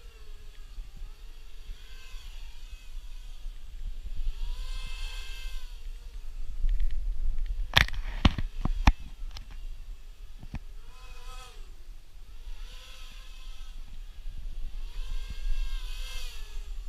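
QAV250-class FPV quadcopter's brushless motors whining, the pitch swooping up and down over and over with the throttle, over a steady low rumble. A few sharp knocks come a little before halfway and are the loudest sounds.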